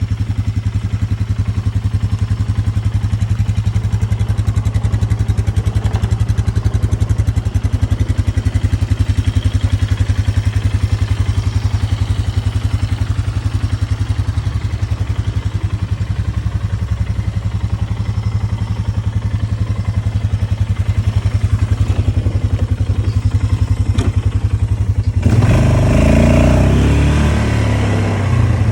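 Rebuilt Polaris Sportsman 500 ATV's single-cylinder four-stroke engine running steadily with an even, fast firing pulse, after its top-end rebuild. Near the end it turns louder and rougher.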